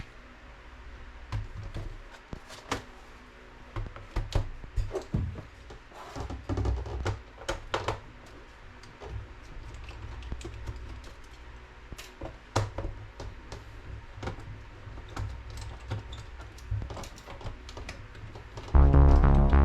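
Scattered clicks, taps and knocks from hands handling hard objects, at an uneven pace. Electronic music starts loudly near the end.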